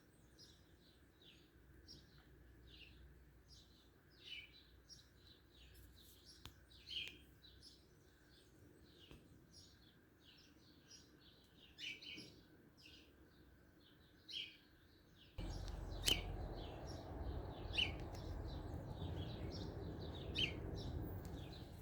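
Outdoor birdsong: many short, high chirps and tweets from several birds, repeating irregularly. About 15 seconds in, a steady low rushing noise comes in abruptly beneath them.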